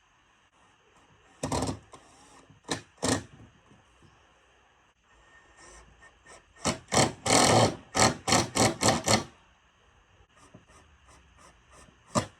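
Knocking on the wooden framing of a barn door being rebuilt with new 2x4s: a few loud knocks, then a quick run of about a dozen, about three a second, and two more near the end.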